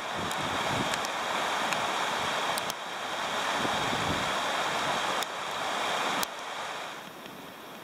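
Gusty wind rushing over the microphone, a steady hiss that drops off abruptly twice in the second half and stays lower near the end.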